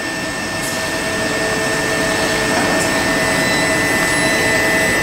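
Southeastern class 375 Electrostar electric multiple unit pulling out past the platform: a steady mechanical rush of motors and wheels with a constant high whine, growing slowly louder.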